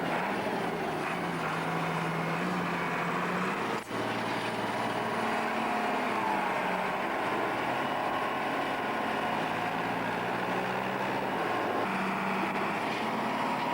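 Heavy diesel farm machinery running steadily, the engine note shifting slightly up and down, with a brief break about four seconds in.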